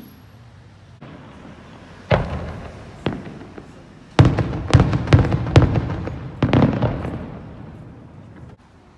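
Aerial fireworks bursting: a single bang about two seconds in and another a second later, then a quick run of bangs, each trailing off in an echo, fading before the sound cuts off near the end.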